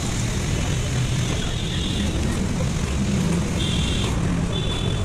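Steady road-vehicle noise, a continuous low rumble with a hiss over it, and two short high tones near the end.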